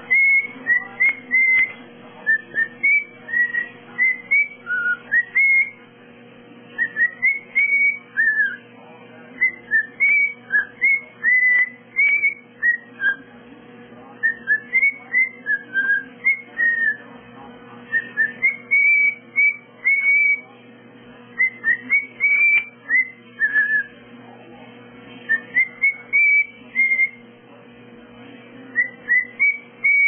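Cockatiel giving short, high chirping calls over and over, in quick runs of several with brief pauses: the insistent calls of a begging bird.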